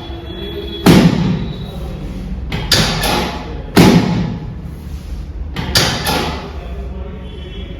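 Loud, sharp thuds from chiropractic adjustment on a treatment table: single knocks about a second in and near four seconds, and quick doubles and triples around three and six seconds, each with a short ring after it.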